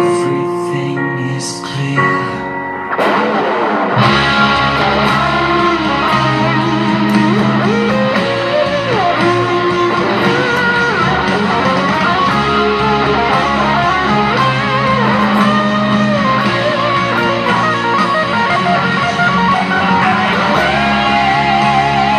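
Electric guitar solo on a PRS SE Custom 22, played through overdrive pedals into a Marshall MG15 amp: a lead line with string bends and vibrato over a band backing with bass and drums. Held notes first; the full band comes in about four seconds in, and a wide vibrato on a held note comes near the end.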